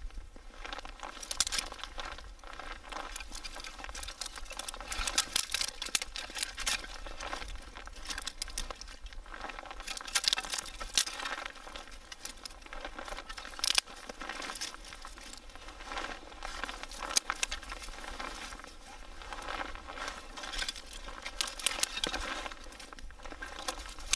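Small wood fire crackling and popping irregularly as the kindling catches from a burning Esbit solid-fuel tablet.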